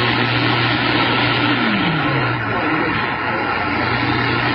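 CB radio receiver hissing with loud static over an open channel, a steady whistle-like tone and a low hum underneath; a short falling tone sweeps down about two seconds in.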